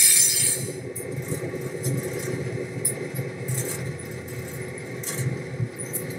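Diesel locomotive engine running with a steady low rumble and scattered light clicks. A loud hiss dies away in the first half second.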